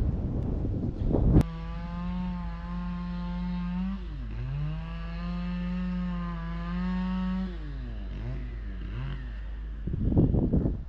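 A motor hums steadily, starting suddenly after a click. Its pitch dips and recovers about halfway through, then drops and wavers a few times before it stops. Wind noise comes before and after.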